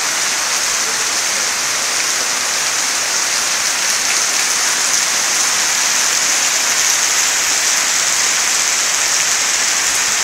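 Heavy rain pouring down onto standing floodwater and wet paving, a loud, steady hiss.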